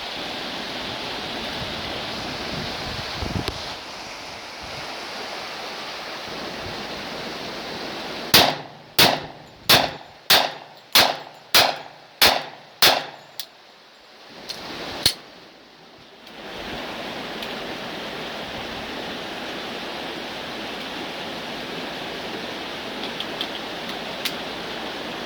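Rifle firing a quick string of about nine shots, roughly one and a half a second, then two more spaced shots a few seconds later, over a steady background of wind-like noise.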